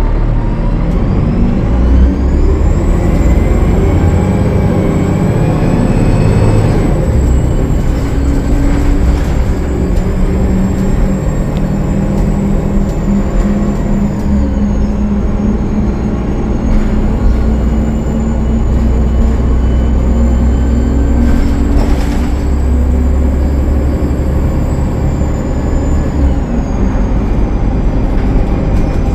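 Cummins ISL9 diesel engine of a Gillig Low Floor transit bus pulling under load, with a high turbocharger whine that rises about two seconds in, holds, and eases off near the end; the whine is put down to a turbo leak.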